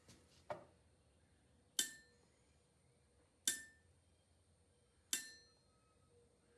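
Steel ball bearing dropped repeatedly onto the face of a horseshoe anvil in a rebound test. There is a soft knock about half a second in, then four sharp clinks about 1.7 s apart, each with a brief high ring. The ring and rebound show how hard and lively the anvil face is.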